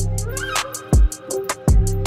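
Background music with a steady beat: deep bass-drum thumps about once a second under quick hi-hat ticks and held melodic tones.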